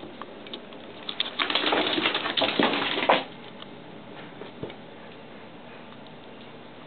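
A burst of scuffling, pattering and scraping on a tiled floor that starts about a second in and cuts off sharply two seconds later: cats scrambling after a mouse. Only a few faint ticks follow.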